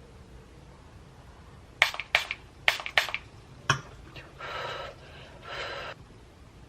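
Makeup products being handled: about four sharp plastic clicks in quick succession and one more a moment later, like cosmetic caps and cases snapping open and shut, followed by two short hissing bursts about half a second each.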